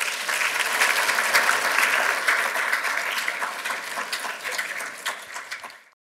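Audience applauding, a dense patter of many hands clapping that swells at once and dies away near the end.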